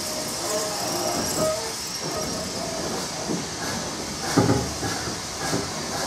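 Narrow-gauge steam-hauled train running along the line, heard from a carriage: steady rolling noise with repeated clicks from the wheels over the track and a louder knock about four seconds in.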